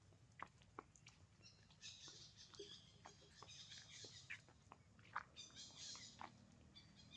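Faint high-pitched chirping calls in two bouts, starting about a second and a half in and again about five seconds in, over near silence, with a few soft ticks of small steps on dry leaf litter.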